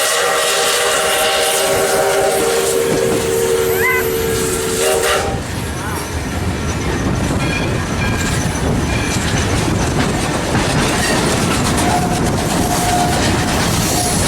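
Steam locomotive's whistle sounding a long, steady chord that cuts off about five seconds in, followed by the rumble and clickety-clack of the passenger cars rolling along the rails.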